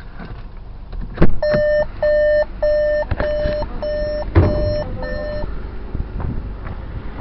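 Volkswagen T-Cross warning chime beeping about twice a second, seven times, as the driver's door stands open. A clunk just before the chime starts, another knock midway, and a heavy thud near the end as the door is shut.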